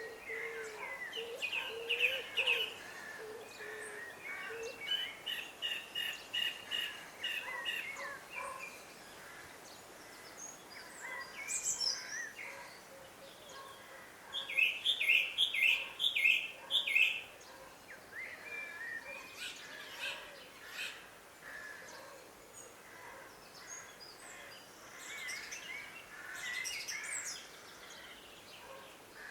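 Several birds singing and calling in an early-evening village, with a low wavering call in the first few seconds and two louder runs of quick repeated notes, one about five seconds in and one about halfway through, over a faint steady background hum.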